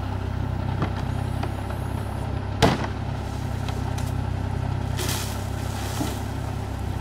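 Nissan 350Z's V6 idling steadily, with a sharp click about two and a half seconds in as the rear hatch is unlatched and lifted. A few lighter knocks come before it, and a brief rustle a few seconds later.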